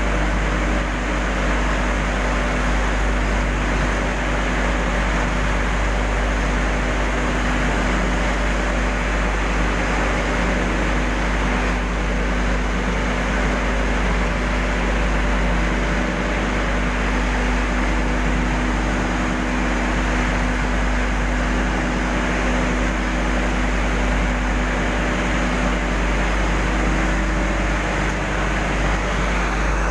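Steady, loud industrial drone of a furnace plant and its machinery, an even rushing noise with a constant low hum and no change throughout.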